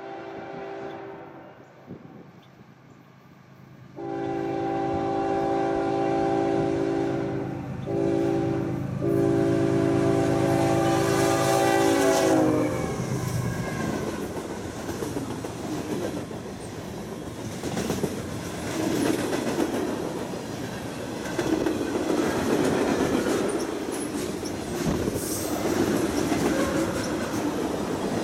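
Canadian National diesel freight locomotive's air horn sounding a long-long-short-long pattern, the grade-crossing warning, over the engine's low rumble. The horn's pitch drops as the locomotive passes, about twelve seconds in. After that the covered hoppers and tank cars roll by with steady clickety-clack of wheels on rail joints.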